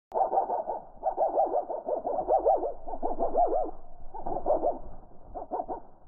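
European goldfinches' twittering calls slowed down several times, so they come out as a deep, wavering warble in rapid runs, thinning out near the end.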